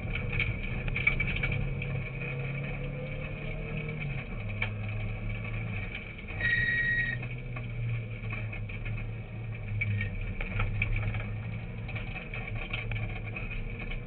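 Rally car engine running hard on a gravel road, heard from inside the cockpit, its pitch dropping a step about four seconds in, with scattered clicks and knocks over it. A short high tone sounds briefly about six and a half seconds in.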